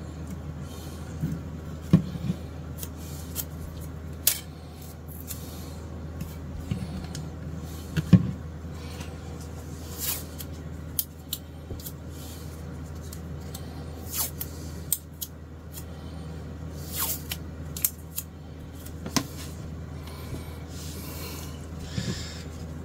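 Scattered clicks, taps and light scrapes from hands handling a plastic guitar binding strip and masking tape against a guitar neck, over a steady low hum.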